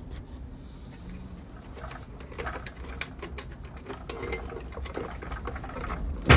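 Parts inside an opened vending machine being handled and rattled: small clicks and scraping that get busier partway through, ending in one sharp knock.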